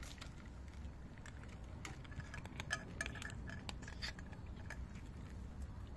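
Light clicks and clinks of cat food being served into a dish, busiest in the middle few seconds, with some short ringing ticks.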